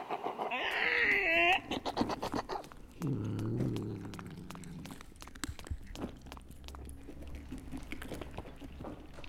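Staged zombie attack: rough, strained cries and a high falling scream in the first second and a half, then a low growl about three seconds in. Scattered clicks and scuffs follow over a low hum.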